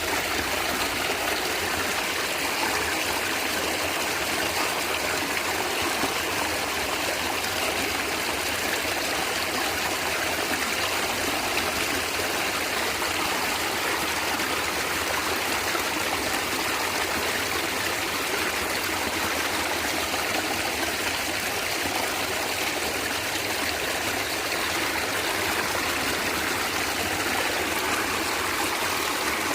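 Natural stream water flowing and gurgling steadily.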